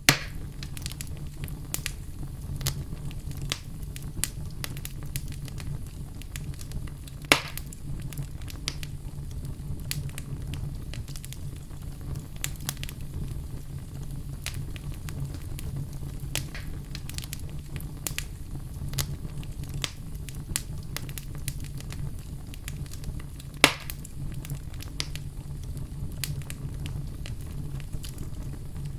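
Wood fire burning in a fireplace: a steady low rumble of flames under frequent small crackles, with three sharper, louder pops, one right at the start, one about a quarter of the way in and one about four-fifths of the way through.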